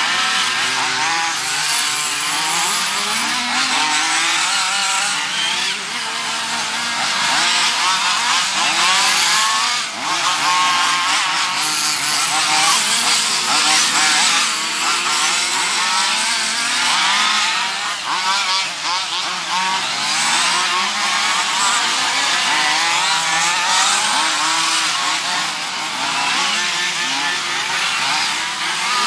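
Several small two-stroke nitro engines of 1:8 scale off-road RC buggies running at high revs. Their high-pitched whines overlap and constantly rise and fall as the cars accelerate and brake around the track.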